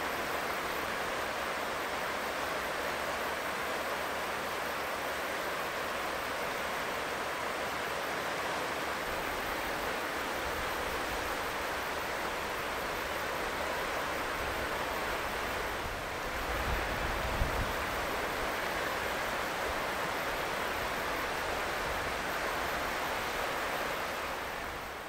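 Steady, even rushing noise of an outdoor scene, with a low rumble swelling briefly about two-thirds of the way through and a fade-out at the very end.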